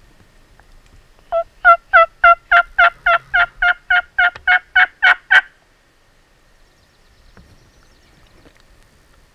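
Turkey yelping: a run of about fourteen evenly spaced two-toned yelps, roughly three a second, lasting about four seconds, loud and close.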